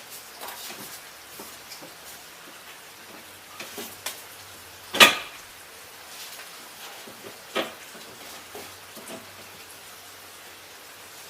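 Scattered clicks and clanks of hand tools and metal hardware being worked on a truck door while the window regulator is fitted, with one louder knock about five seconds in.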